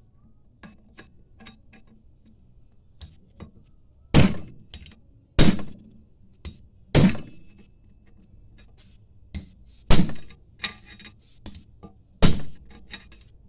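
Hammer blows on a 5/8 wrench set against the lip of an oil pump pickup tube, driving the tube into the pump body: five hard metallic strikes spaced one to three seconds apart, with lighter taps and clicks between.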